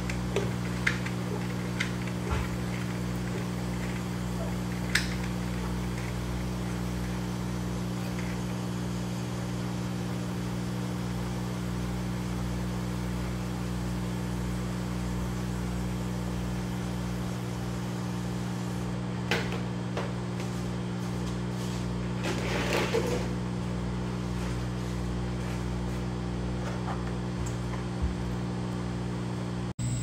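Steady hum of the grow room's machinery, a low drone with several fixed tones, broken by a few light clicks and a short rustle about three quarters of the way through.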